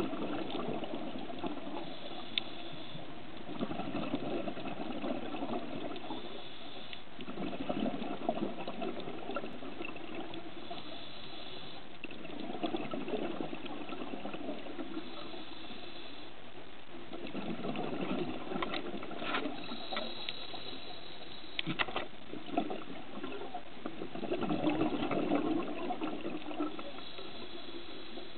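Scuba diver's breathing heard underwater: regulator exhaust bubbles rushing out in swells every few seconds over a steady hiss, with a few sharp clicks.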